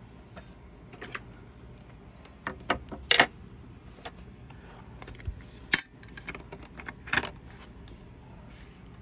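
Hands handling things on a tabletop: scattered taps, clicks and light metallic clinks, the loudest a cluster about three seconds in, with sharper single knocks near six and seven seconds.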